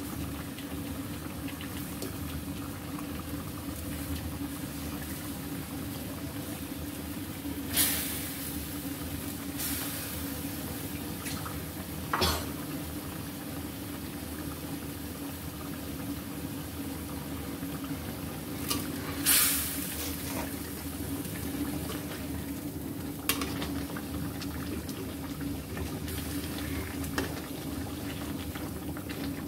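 Thick spice paste bubbling and sizzling in a karahi with hilsa fish pieces in it, as the fish is lightly fried in the masala. A steady low hum runs underneath, and there are a few sharp knocks, the loudest about eight seconds in and near twenty seconds in.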